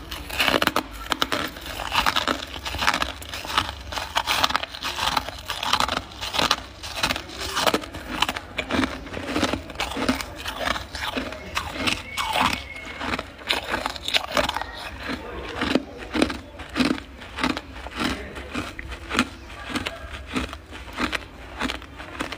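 Close-up chewing of powdery freezer frost: repeated crisp, squeaky crunches about once or twice a second as mouthfuls of packed frost are bitten and ground.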